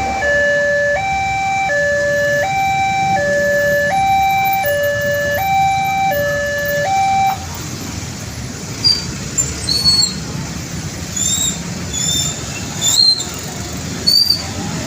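Railway level-crossing warning alarm sounding its two-pitch electronic signal, alternating high and low about every 0.7 s, then cutting off about seven seconds in. A steady low traffic rumble runs underneath, and several short high chirps follow after the alarm stops.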